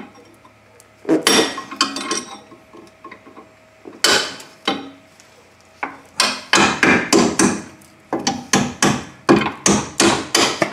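Hammer blows on a steel punch, metal on metal, driving the cut-off stud remnant of a sway bar end link out of the suspension arm. A few single strikes come first, then from about two-thirds of the way in a quick run of about three blows a second.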